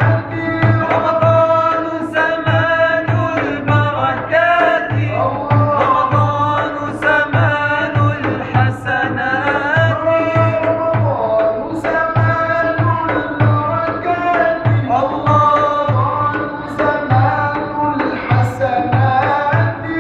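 Young men's voices singing an Arabic devotional chant (ibtihal) with a winding, ornamented melody, over a steady beat from a hand-played frame drum.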